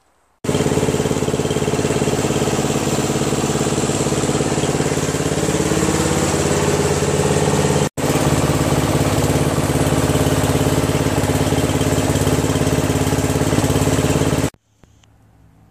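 Lawn tractor engine running steadily at a fairly even speed. The sound starts abruptly about half a second in, drops out for an instant about eight seconds in, and cuts off sharply near the end.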